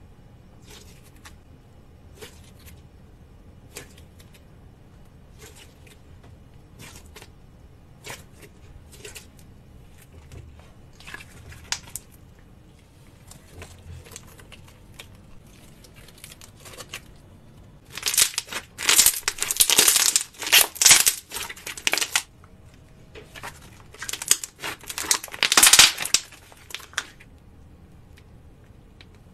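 Thick slime squeezed and stretched by hand, giving small sticky pops and clicks, then two spells of loud, dense crackling in the second half.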